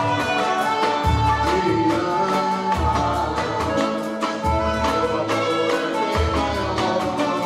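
Music with a steady beat, its low bass note recurring about every second and a half.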